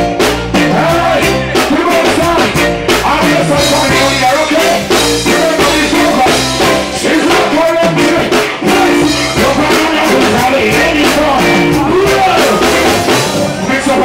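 Live reggae band playing: a male singer on a handheld microphone over drum kit, electric guitar and keyboards.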